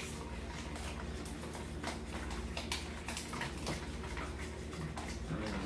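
Utensils stirring thick homemade flour-and-salt paint in small plastic bowls, making irregular light clicks and scrapes against the plastic, over a low steady hum.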